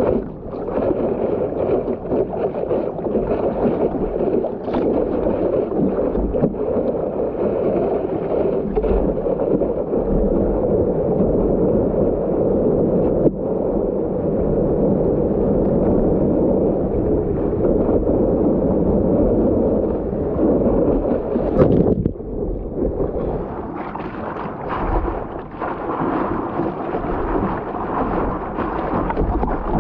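Water rushing and splashing against a stand-up paddleboard's nose as it moves through small breaking waves, with wind on the microphone. About two-thirds of the way through, the rush drops briefly and then returns hissier.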